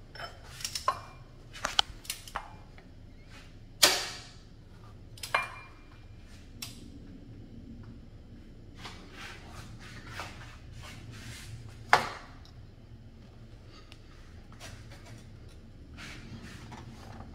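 Scattered sharp metallic clicks and clanks from hand work on an open engine. Two louder clanks, one about four seconds in and one about twelve seconds in, ring briefly, over a low steady hum.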